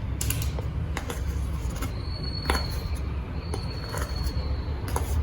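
A spoon stirring dry cake ingredients in a mixing bowl, with scattered light clicks and taps of the utensil against the bowl over a low steady hum.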